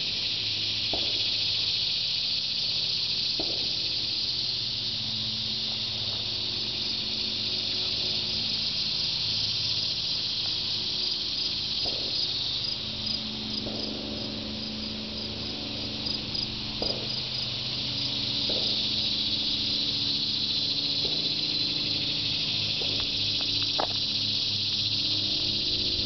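A chorus of annual cicadas buzzing as one steady, high, continuous drone. Now and then a few faint thuds of distant gunshots sound through it.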